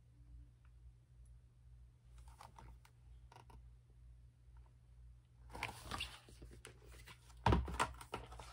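Paper rustling and handling noise from a hardcover picture book. A page is turned faintly a couple of seconds in, then louder rustling and a knock come near the end as the book is lowered.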